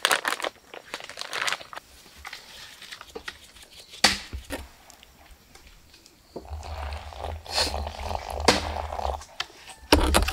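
Crinkling of a plastic snack packet and scattered sharp knocks and clinks of steel cups and pots set down on a camp table, with a low rumble from about six seconds in.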